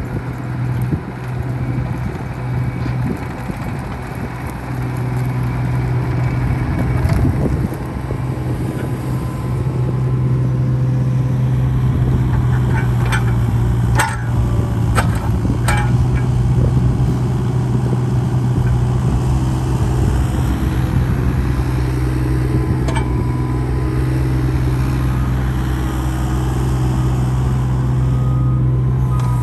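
Takeuchi TB216 mini excavator's diesel engine running steadily, growing louder over the first ten seconds or so, with a few sharp metallic clanks about halfway through.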